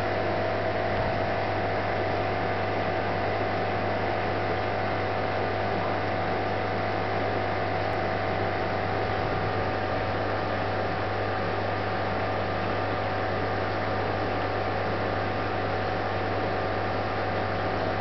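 A steady low electrical hum with a few faint higher tones over a constant hiss.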